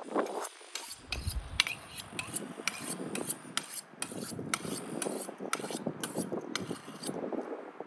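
Kitchen knife being honed on a steel: quick scraping strokes of the blade along the rod, about three a second, which stop near the end.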